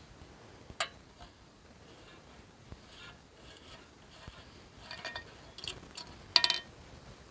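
Clinks and clatters of hard camp gear, metal or glass, being handled: a sharp click about a second in, then a cluster of ringing clinks near the end, the last of them the loudest.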